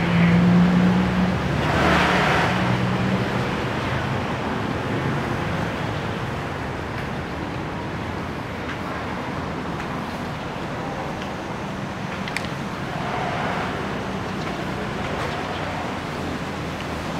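City street ambience: a steady wash of traffic noise, with a low steady hum for the first few seconds and a passing swell about two seconds in and again around thirteen seconds.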